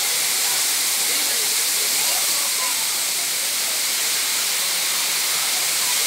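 Waterfall pouring down a tall rock face into the pool below: a steady, loud rushing hiss. Faint voices of people in the water are heard under it.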